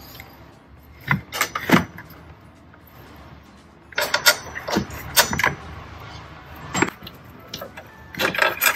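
Irregular sharp clicks and knocks from handling a hard plastic engine-bay cover panel and hand tools, the panel being worked loose. The knocks come in small clusters, a few in the first two seconds, a busier patch about four to five seconds in, and more near the end.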